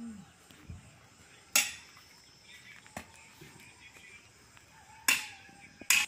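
Two loud, sharp knocks about three and a half seconds apart, each with a short ring after it, and a fainter knock just before the end, over a quiet outdoor background.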